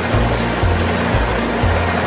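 Background music with a low bass line, over the steady rush of a stream.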